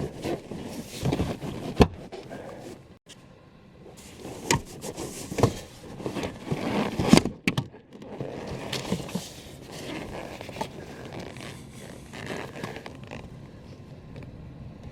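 Hands working on car interior trim: plastic scraping and rubbing with scattered sharp clicks and knocks, the loudest knocks about two and seven seconds in, then quieter rustling.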